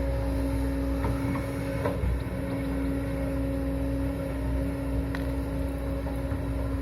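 An engine running steadily, a constant droning hum with a deep rumble under it.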